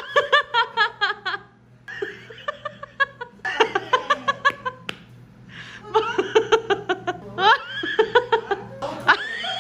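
A woman laughing hard in repeated fits of rapid "ha-ha" pulses, several a second, broken by short breaths between the runs.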